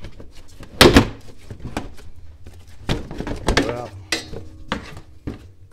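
Front inner fender liner being pried out of a car's wheel well: a loud thunk about a second in, then lighter knocks and scraping as the liner is worked loose.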